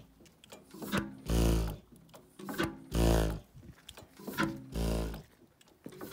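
Chaléassière two-stroke hot-bulb (semi-diesel) engine running in pendulum mode, its flywheels rocking back and forth instead of turning. It fires about every 1.7 seconds, three heavy exhaust beats of about half a second each, each coming just after a lighter, sharper knock.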